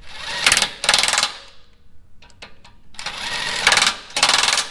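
Cordless impact wrench hammering in short bursts as it runs 17 mm grade 10.9 hitch bolts tight through the truck's frame. There are two pairs of bursts, one near the start and one near the end, with a few light clicks between them as the socket moves to the next bolt.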